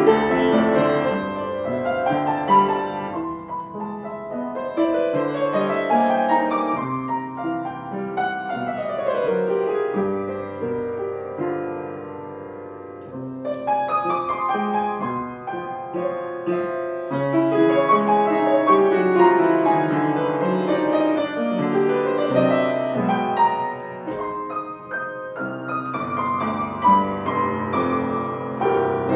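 Solo piano improvising in a mix of jazz, romantic and classical styles: flowing runs and arpeggios sweeping up and down the keyboard, easing into a softer passage a little before halfway and then building again.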